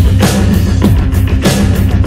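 Loud dance music with a strong, steady beat, heavy bass and repeated falling pitch sweeps.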